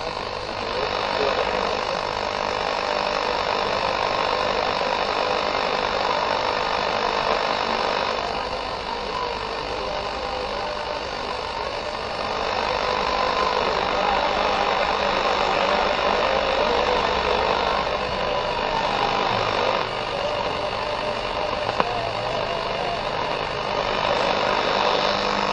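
Golon AM radio tuned across the medium-wave band, giving a steady hiss of static with weak, distant stations buried in it. The noise changes character a few times as the frequency steps up.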